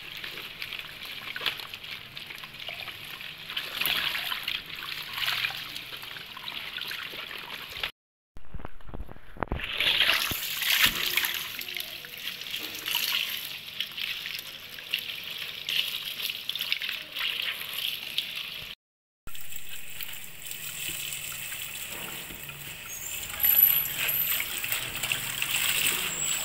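Tap water running into a stainless steel sink as lettuce leaves are rinsed under the stream by hand, splashing and trickling. The sound drops out briefly twice.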